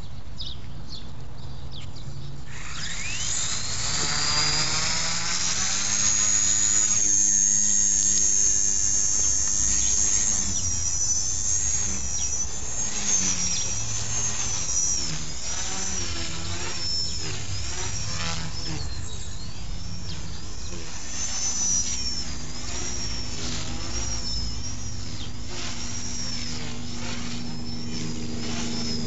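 Blade mCP X micro RC helicopter's electric motor and rotor spooling up with a quickly rising high whine about two and a half seconds in, then whining on and wavering up and down in pitch as the throttle changes in flight.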